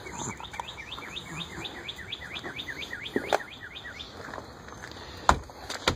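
A songbird singing a rapid, even run of short chirps, each falling in pitch, for about three and a half seconds. A single sharp knock follows about five seconds in.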